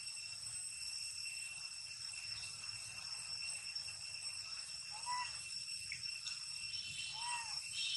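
Steady high-pitched insect drone, unbroken throughout. Two short calls rise and fall in pitch about five and seven seconds in.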